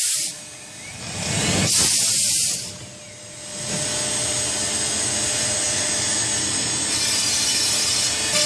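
Two short blasts of hiss from a compressed-air blow gun clearing chips, one right at the start and one about two seconds in. After that, a CNC router spindle running steadily as its end mill cuts a groove in pink foam board.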